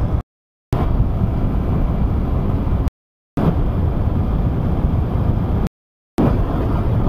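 Wind buffeting the microphone and road noise from a motorcycle ridden at highway speed: a heavy, even rumble, cut to silence three times for about half a second.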